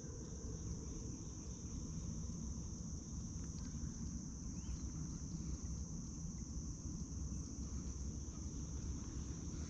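A chorus of insects holding a steady, high-pitched drone, with a low rumble underneath.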